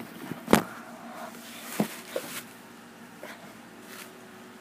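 A few sharp knocks and faint rustles of a phone being handled and moved, the loudest knock about half a second in and a smaller one a little over a second later.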